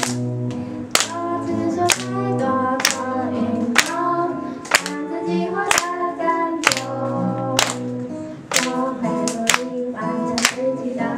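A woman singing into a microphone over acoustic guitar, with hand claps marking the beat about once a second.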